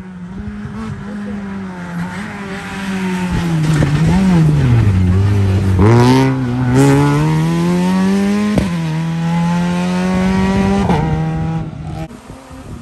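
Rally car engine passing close on a wet special stage. The revs fall as it slows for the bend, with two sharp bangs as it comes past. It then accelerates hard away with rising revs, broken twice by quick upshifts.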